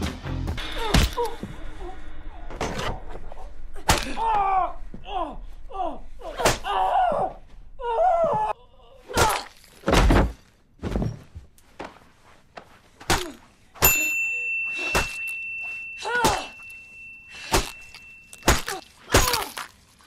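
Film sound of a violent struggle: a series of heavy thuds and smacks at irregular spacing, mixed with a person's pained groans and cries. A steady high ringing tone sounds for about four seconds in the second half.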